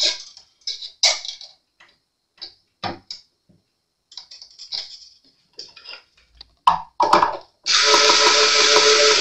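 Steel guitar strings being handled and threaded through the tuner posts: scattered short scrapes, rustles and clicks. Near the end a small cordless electric screwdriver starts suddenly on a tuner button and runs steadily, winding the string on.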